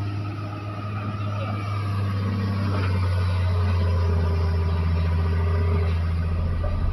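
Hitachi excavator's diesel engine running steadily under load as the machine lifts and swings a heavy log, a low drone with a higher whine joining for a couple of seconds past the middle. The excavator is described as no longer strong enough to lift the logs.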